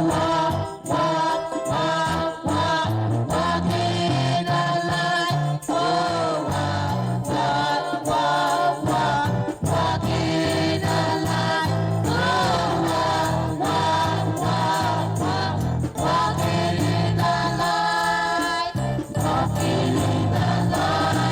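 Choir and congregation singing a gospel praise chorus with instrumental backing.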